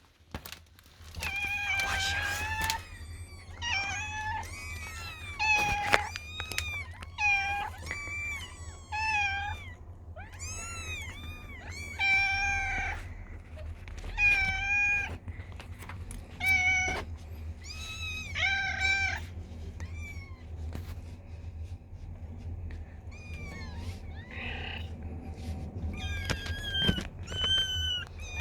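A domestic cat meowing over and over, a long string of short and drawn-out meows, with fewer calls for a few seconds past the middle. A steady low hum runs underneath.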